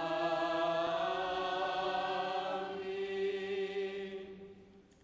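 A choir chants a sustained Byzantine-rite liturgical response, holding long, nearly steady notes. The chant fades out shortly before the end.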